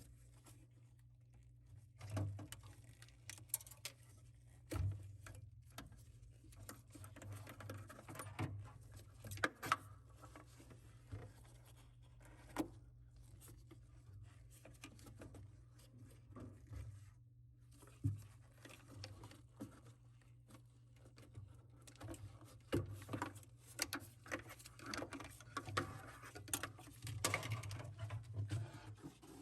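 Scattered clicks, knocks and light rustling of hands working on the plastic panels and parts inside a refrigerator's fresh-food compartment, over a steady low hum.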